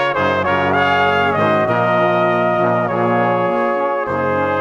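Background music of held instrumental chords that change every second or so.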